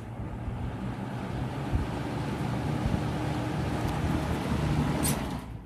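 Lakewood P-223 box fan running, its blades moving air with a steady rushing sound over a low drone. It grows louder over the first two seconds and stops abruptly near the end. The fan runs normally and is not seized despite being rusted and battered.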